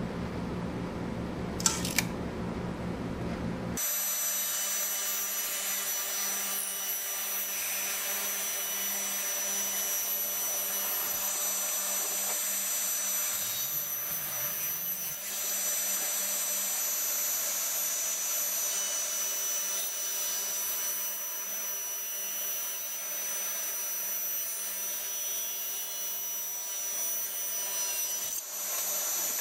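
A high-speed electric motor running steadily with a high whine, which starts abruptly about four seconds in after a lower humming machine noise and two sharp clicks.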